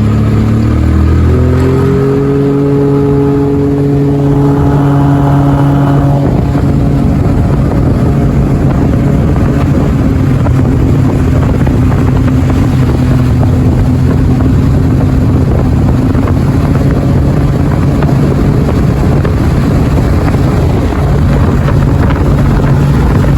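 Yamaha 40/30 jet outboard motor speeding up, its pitch rising over the first two seconds, then running steadily at speed over a constant rushing noise.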